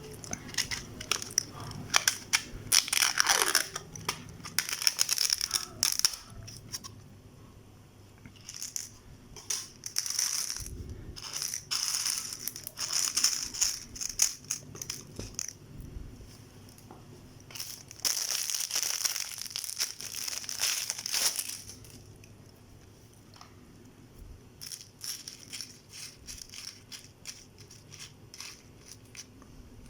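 Close-miked eating of a microwaved noodle meal: clusters of crunching, clicking and crackling handling and chewing sounds, coming in bursts with quieter pauses between them.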